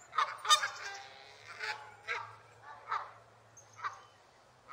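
Canada geese honking: a quick run of overlapping honks at the start, the loudest about half a second in, then single honks at intervals of about half a second to a second.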